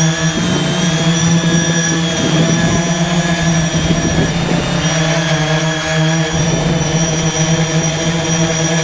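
Y6 multirotor drone's six brushless motors and propellers running in flight, a loud steady hum with several steady whining tones above it, wavering a little a few seconds in.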